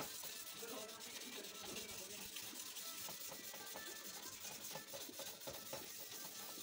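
Wet 600-grit sandpaper rubbed back and forth by hand over a motorcycle's plastic headlight lens, a faint scratchy hiss. The sanding is taking off the yellowed, oxidised surface of the lens.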